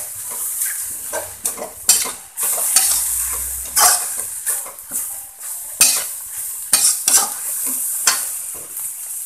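Metal spatula stirring and tossing cabbage and greens in a wok as they sizzle, with irregular scrapes and clacks of the spatula against the pan.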